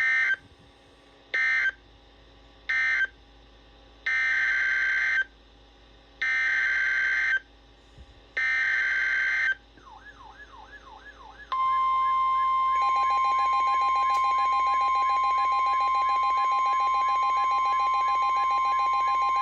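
NOAA Weather Radio EAS/SAME digital data bursts: three short end-of-message bursts closing the previous flood warning, then three longer header bursts for the next flood warning. About two seconds later comes the steady 1050 Hz Warning Alarm Tone, lasting about nine seconds. A second warbling, buzzing alarm sounds under the tone.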